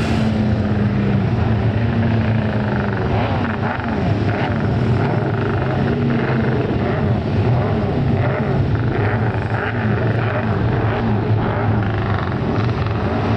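Honda six-cylinder Grand Prix racing motorcycle engine running, repeatedly revved up and down over a steady low drone.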